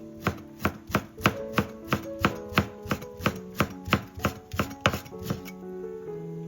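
Kitchen knife chopping food on a cutting board in a steady rhythm, about three strokes a second, stopping about five and a half seconds in, over soft background music.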